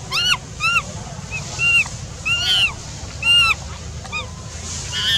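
A baby monkey's calls: a string of about eight short, high-pitched cries, each rising and falling in pitch, some louder than others.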